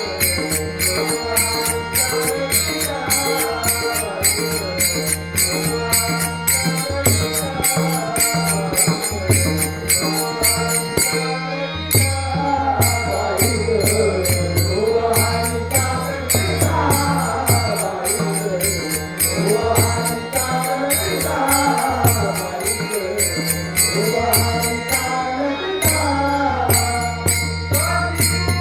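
Male devotional singing in the Varkari bhajan style, a solo voice with melismatic pitch bends over a steady low drone, kept in time by evenly spaced small-cymbal strokes that drop out briefly twice.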